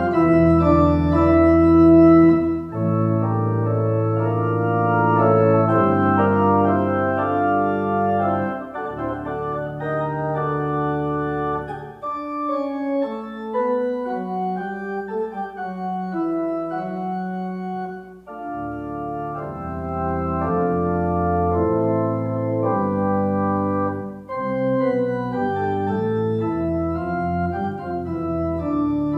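Church organ playing a slow postlude: sustained chords over deep held bass notes. The bass drops out for a few seconds about twelve seconds in.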